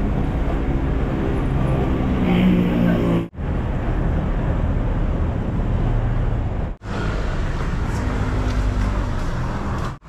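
Steady low rumble of a car idling, heard from inside the car's cabin. It cuts out for a split second twice, about three and seven seconds in.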